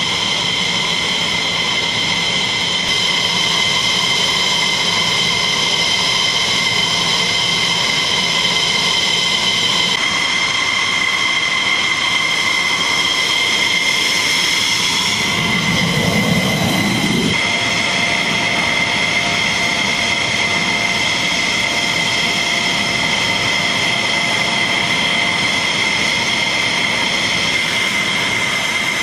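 F-16 jet engines running on the ground: a steady, loud, high turbine whine with a few fixed tones. About halfway through, a low rumble swells and fades as a taxiing F-16 passes close by.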